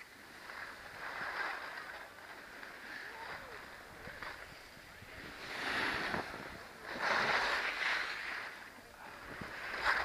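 Skis or board edges scraping and hissing over packed snow on a groomed slope, swelling and fading with each turn, the loudest swells past the middle. Wind on the microphone.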